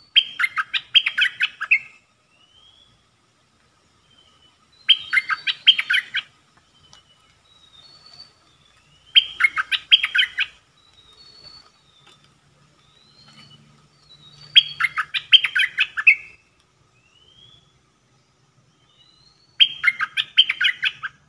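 Caged decoy bulbul singing: five loud phrases of quick notes, about every five seconds, with faint short rising whistles in the gaps.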